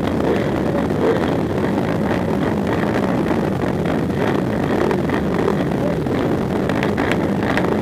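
Several racing ATV engines running together, idling and being blipped, with some wind noise on the microphone.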